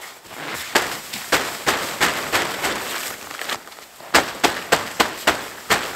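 Gloved hand slapping and brushing the wall of a snow-covered canvas tent, knocking the snow off: a quick run of sharp slaps, about three a second, with a short pause near the middle.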